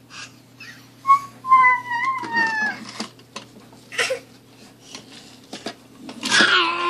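A toddler's high-pitched squeal that slides down in pitch, with scattered knocks and clatter from things being handled on a shelf; another drawn-out vocal sound starts near the end.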